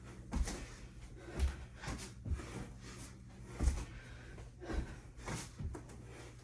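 Hard, sharp breathing from someone doing burpees, mixed with dull thumps on the floor, irregular and about one or two a second.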